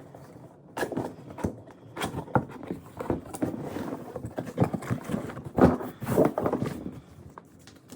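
Packaging being handled while a boxed espresso machine is unpacked: irregular rustling, scraping and knocks from cardboard and wrapping.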